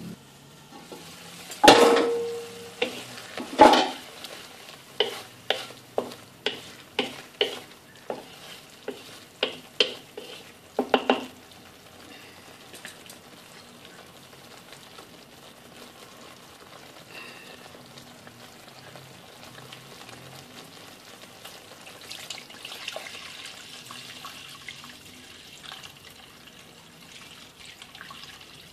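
Chili paste sizzling in a metal frying pan while a wooden spoon stirs it. Two loud knocks against the pan, the first with a short ring, are followed by a run of sharper taps about two a second; after that only a steady, soft sizzle remains.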